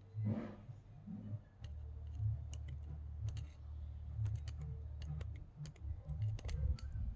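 Small irregular clicks and taps as a ball bearing and an aftermarket spinning-reel knob are handled and fitted onto the reel handle, over a low steady hum.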